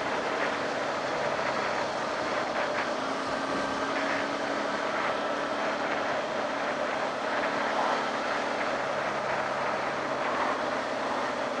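Steady wind rush over the rider's camera microphone, with a Honda CB600F Hornet's inline-four engine running at an even cruising speed underneath.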